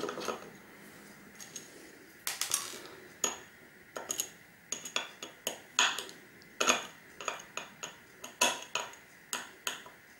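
Small screwdriver working the tiny screws of a hard drive's platter clamp ring. It makes irregular light metallic clicks and clinks, about two a second, some with a brief high ring.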